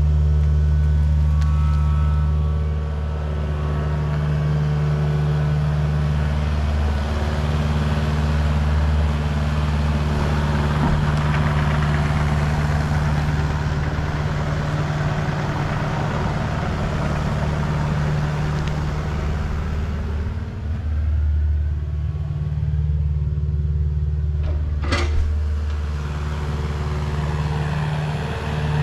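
An engine running steadily, its speed changing a little now and then, with one sharp knock about 25 seconds in.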